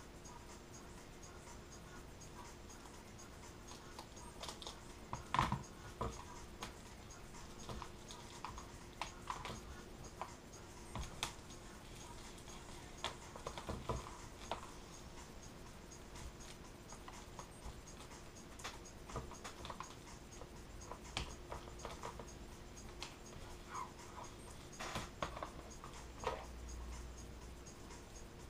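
Laminating film being trimmed and pressed onto a foam RC plane wing with a covering iron: scattered light scratching, rustling and tapping, over a faint steady hum.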